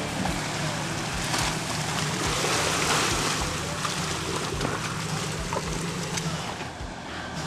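Pickup truck driving slowly through a shallow rocky creek: the engine hums steadily under the splashing and churning of water around the tyres. The splashing is loudest around the middle, and the engine hum fades near the end as the truck passes.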